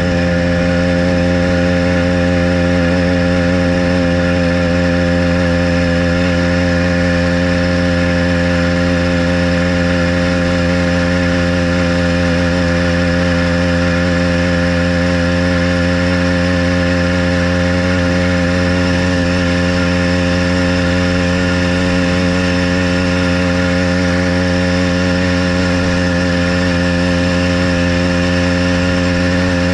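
Motorized bicycle's small gasoline engine running at a steady pitch while riding at cruising speed.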